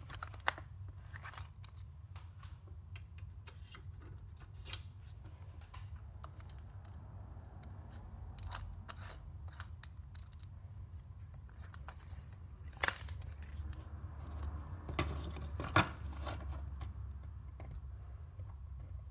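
Scattered clicks, taps and rattles of a cordless drill and a thin metal part being handled and set up on a wooden bench, with one louder knock about two-thirds through. Near the end the drill runs at low speed as the bit starts into the metal.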